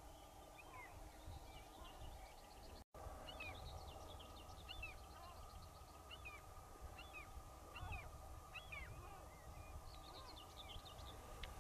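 Faint chirps and calls of small wild birds, many short up-and-down notes in quick succession, over a faint steady hum and a low rumble. The sound drops out for an instant about three seconds in.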